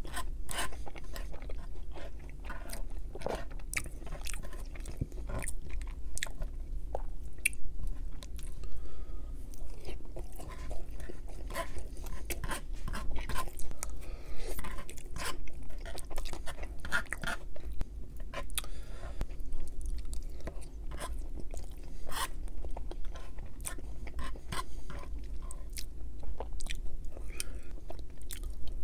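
Close-miked chewing and biting of poutine, fries in gravy with cheese curds, with many irregular wet mouth clicks and smacks.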